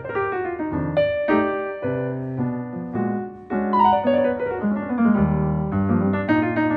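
Background piano music: a piano plays a melody over chords and a moving bass line.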